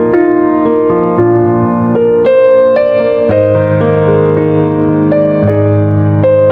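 Keyboard music in a piano sound: a slow melody of held notes over low sustained bass notes, with a new note about every half second.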